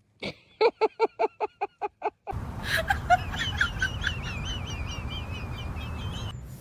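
A quick run of about nine short, evenly spaced animal calls, then small birds chirping and twittering rapidly over a steady background hiss.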